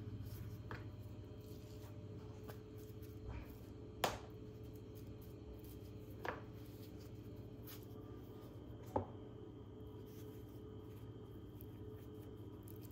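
Hands folding samosa pastry strips on a work surface: soft handling and rubbing with a few sharp taps, the loudest about four seconds in, over a steady low hum.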